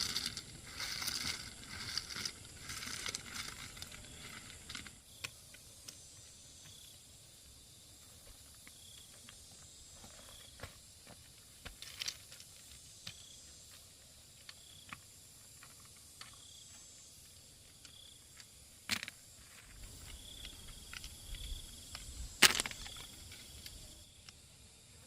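Rustling and scraping handling noises for the first few seconds, then quiet outdoor background with a faint high chirp repeating about once a second and a few sharp clicks, the loudest near the end.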